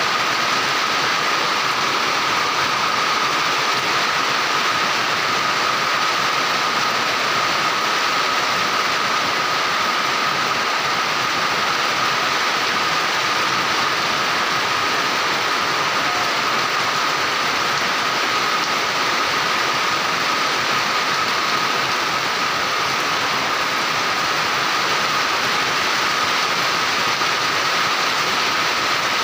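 Heavy rain pouring onto a flooded concrete yard and roofs, a dense, steady hiss. A thin steady tone sits underneath.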